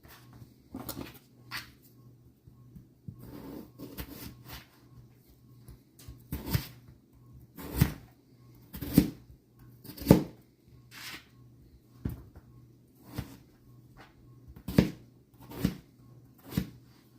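Kitchen knife chopping on a cutting board: separate chops, soft and scattered for the first few seconds, then firmer at about one a second.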